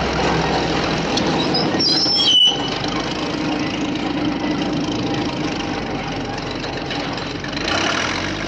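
A large vehicle running steadily, with a brief high squeal about two seconds in.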